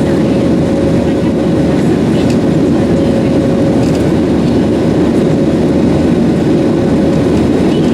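Steady loud cabin noise of a Boeing 737 in flight: the jet engines and rushing air, with a steady hum running through it.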